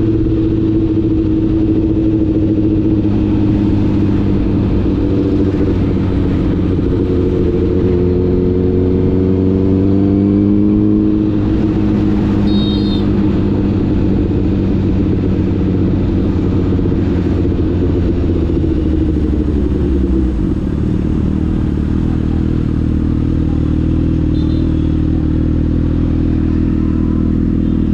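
Honda CBR1000RR's inline-four engine running under way, heard from the rider's seat. The engine note climbs about a third of the way in, drops about two-thirds of the way through, then holds steady.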